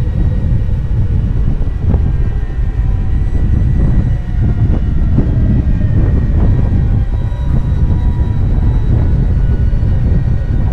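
Strong wind buffeting the microphone: a loud, steady low rumble that surges and eases without a break.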